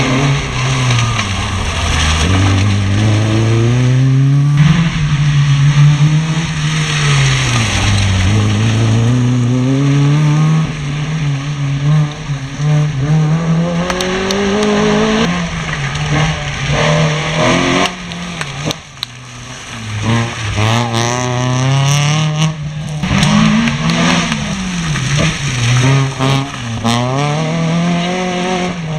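Rally car engines revving hard and dropping back again and again as the cars accelerate out of tyre chicanes and brake for the next ones. The first car fades about halfway through. A second car comes in revving quickly in rising sweeps for the last third.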